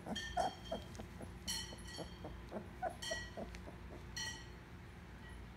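Labrador Retriever puppies whimpering and squeaking while hungry for a feed. About four short high-pitched squeals come roughly once a second among soft whines and grunts.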